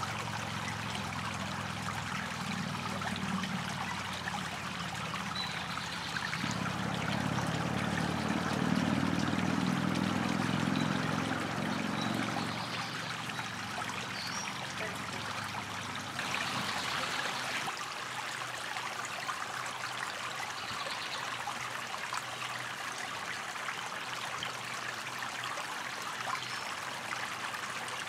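Shallow creek water running and trickling over rocks in a steady splashing rush. A low hum sits under it for roughly the first dozen seconds, then fades away.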